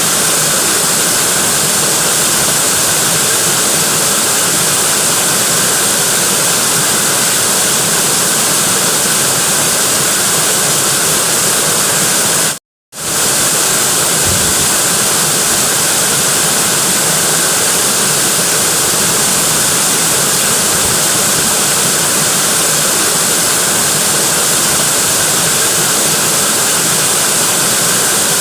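Waterfall: a steady, loud rush of falling water. It cuts out completely for a split second about halfway through, then carries on unchanged.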